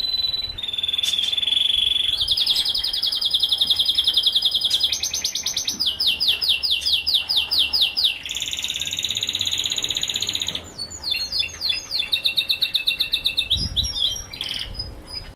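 Canary singing a long song made of rapid trills and rolls. Each phrase is held a second or two before switching to the next: a steady high note, fast buzzy trills, slower repeated sweeps, then a run of quick sweeping notes near the end.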